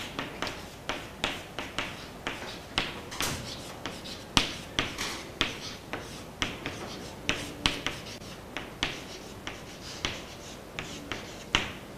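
Chalk writing on a chalkboard: a quick run of sharp taps and short scratches, about two to three a second, as each letter is stroked out.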